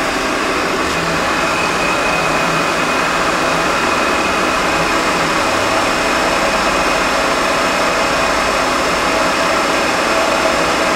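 1980 Myford MG12-HA hydraulic cylindrical grinder running with its hydraulics on: a steady machine hum with a faint high whine.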